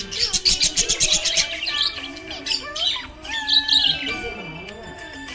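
Budgerigars chattering: fast scratchy chirps and warbles, with a burst of rapid clicking chatter in the first second, over background music.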